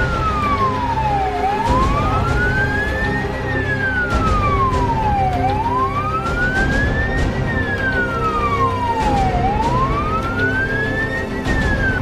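Fire engine siren sounding a slow wail, rising and falling about every four seconds, over a low vehicle rumble.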